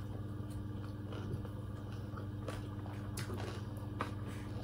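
Someone eating: quiet chewing, with a few faint clicks of a metal fork and spoon against the food, over a steady low room hum.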